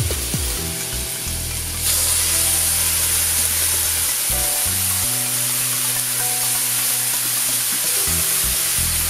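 Vegetables frying in a hot cast-iron skillet, the sizzle jumping sharply louder about two seconds in as red wine is poured in to deglaze the pan, then a steady loud hiss while a wooden spatula stirs. Background music with steady low notes underneath.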